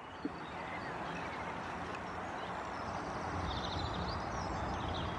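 Steady outdoor background noise, rising a little over the first second, with a short run of faint high chirps a little past halfway.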